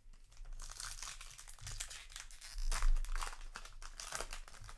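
Foil booster pack wrapper crinkling and tearing open, a run of irregular crackly rustles, loudest about three seconds in.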